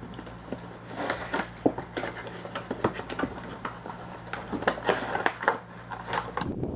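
Plastic miniature packaging being handled and opened: irregular small clicks and crackles of plastic.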